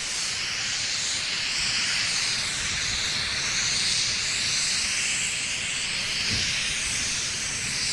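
Steady hiss of gas venting from the Firefly Alpha rocket on its launch pad, just after the countdown was aborted.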